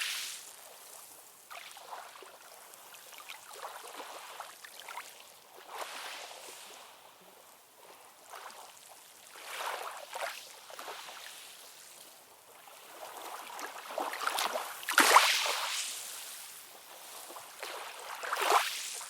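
AI-generated ocean-wave sound: a steady hiss of surf that swells several times as waves wash in, loudest about fifteen seconds in, with no deep rumble underneath.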